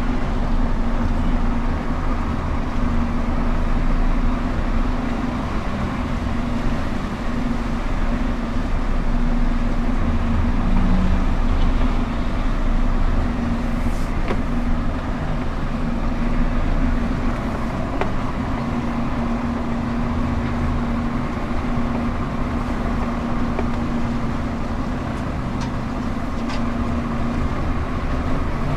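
Heavy truck diesel engine running steadily with a constant low hum, from the Scania R410 concrete mixer truck.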